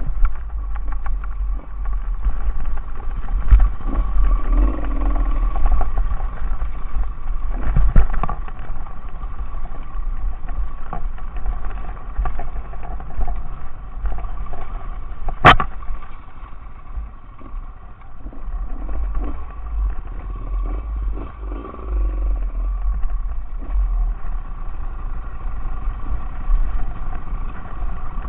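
Enduro motorcycle engine running while riding a rough mule track, with heavy low rumble from wind on the microphone and scattered clatter, and one sharp knock about fifteen seconds in.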